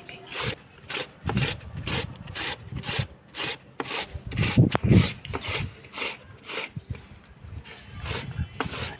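Peeled raw potato pushed down a flat, large-holed metal hand grater, in quick regular grating strokes about two a second.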